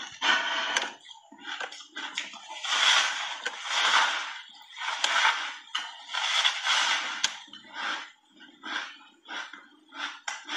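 A person crunching and chewing a block of frozen ice coated thick with milk powder. A few long, loud crunching bites come in the middle, then quicker, regular chewing at about two to three chews a second.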